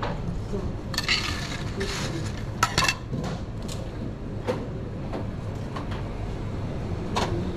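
Kitchen utensils and metal trays clinking and clattering in scattered knocks, loudest in a quick cluster about two and a half seconds in, over a steady low hum.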